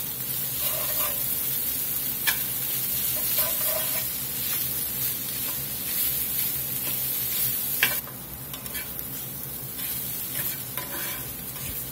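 Spatula stirring and scraping onions, mushrooms and tomato paste around a hot cast-iron skillet over a steady sizzle, with a few sharp clicks of the spatula against the pan. The sizzle and stirring ease off a little about eight seconds in.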